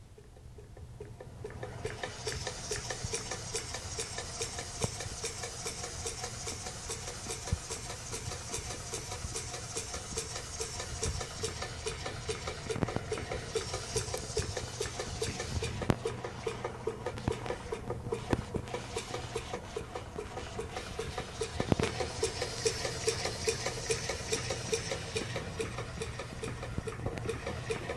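Homemade miniature twin-cylinder steam engine running, coming up to speed about a second in: a fast, steady clatter of its cranks and string-belt pulleys over a hiss.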